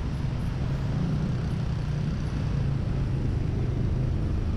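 Yamaha NMAX 155 scooter's single-cylinder engine running at a low, even pitch while crawling in a traffic jam, mixed with the noise of surrounding traffic.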